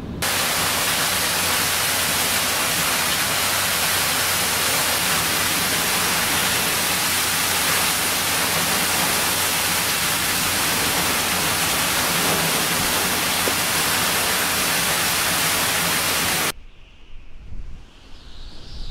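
Steady, even roar of hurricane-force wind and driving rain, a hiss with no lulls, that cuts off suddenly about sixteen seconds in, leaving a fainter rushing sound.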